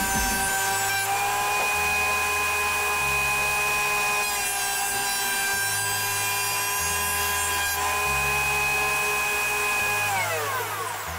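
Ryobi RAP1500G thickness planer running with a steady high motor whine while boards are fed through its cutterhead, with noisier stretches as the wood is cut. About ten seconds in it is switched off and the whine falls away as the motor winds down.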